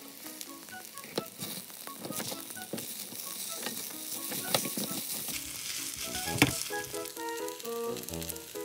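Kimchi fried rice sizzling in a hot frying pan while a spatula presses and tosses it, with clicks of the spatula against the pan and a sharper knock about six seconds in. The rice is being pressed down to crisp a crust on the bottom. Light background music with short plucked notes runs under it, stronger near the end.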